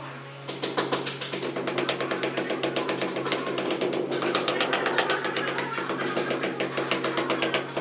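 Rubber mallet tapping a ceramic wall tile in a rapid run of light blows, bedding it into the adhesive. The tapping starts about half a second in.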